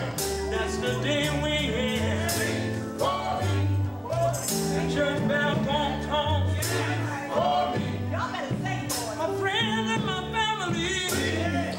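Live gospel quartet music: a male lead voice with backing singers over a band with electric guitar, bass and a steady beat.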